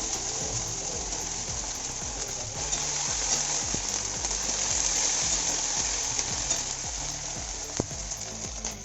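Onion with garlic and ginger paste frying hard in hot oil in a pan: a steady, loud sizzle with occasional spattering pops.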